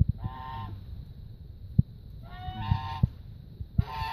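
Goat snoring: three short pitched snores, each about half a second long, coming every one and a half to two seconds. A few sharp clicks fall between them.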